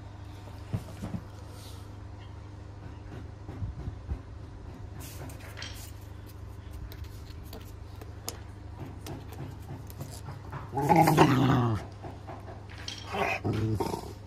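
Rottweiler growling in protest at having its nails clipped: a long growl about eleven seconds in, the loudest sound, then a shorter one about two seconds later. A few faint clicks in the first few seconds.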